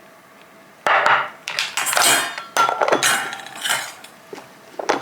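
Utensils clinking and scraping against a dish as food is served onto it, in several short bursts after about a second of quiet.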